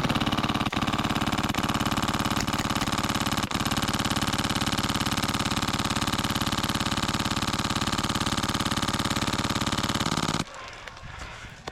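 Airsoft gun firing on full auto in one long, unbroken burst at a rapid, even rate. It stops abruptly about ten and a half seconds in.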